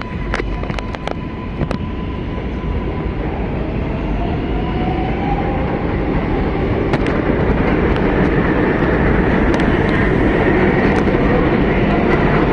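New York City subway 4 train car running on the rails and picking up speed: a dense rumble and rattle that grows steadily louder, with a rising motor whine about halfway through. A few sharp clicks come in the first two seconds.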